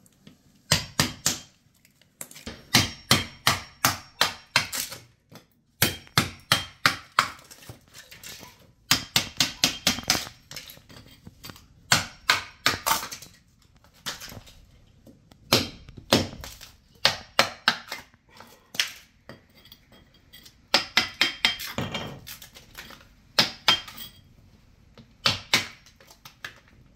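Hammer striking a chisel to chip rotten wooden floorboard strips off a concrete subfloor. Runs of quick, sharp knocks, about four a second, come with short pauses between them.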